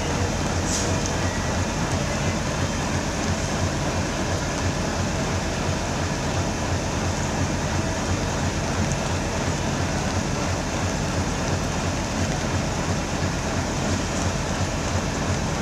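Passenger train running on the track: a steady, unbroken rumble with a hiss over it, and no horn.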